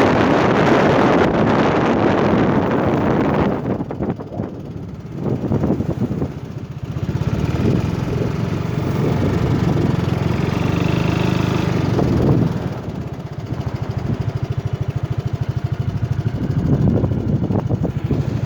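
Wind buffeting the microphone for the first few seconds, then the Suzuki Skywave scooter's engine running at low revs, settling into a steady idle with an even pulse in the second half.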